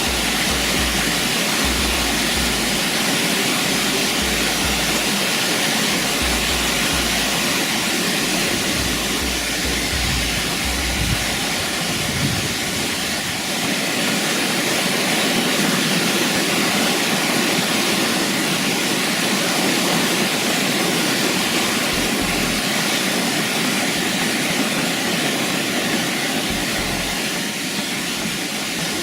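Waterfall: a loud, steady rush of falling water, with low rumbles coming and going underneath.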